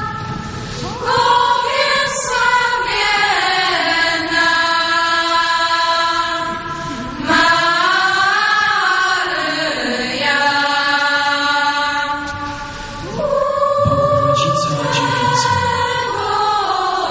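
A school choir singing a slow patriotic song, long held notes that change pitch every second or two, with brief breaths between phrases.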